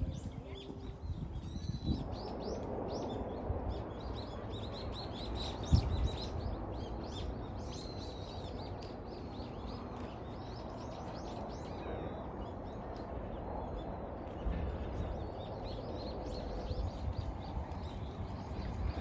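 Small birds chirping and calling over and over, over a steady low background rush, with a single thump about six seconds in.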